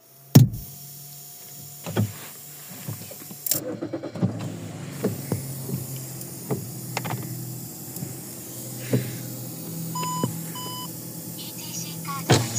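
Inside a car: the engine runs with a steady low hum while handling clicks and knocks sound, the loudest a sharp click just after the start. Two short electronic beeps from the car come about ten seconds in.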